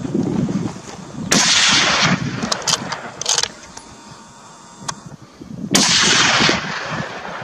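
Two loud gunshots about four seconds apart, each a sudden crack followed by a fading echo, with a few fainter cracks in between, fired at a herd of wild boar running across a hillside.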